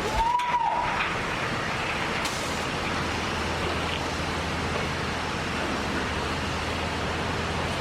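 Elevator sound effect: a few clunks and a short high tone that rises and falls about half a second in, then a steady low hum under even rushing noise, typical of a lift car running.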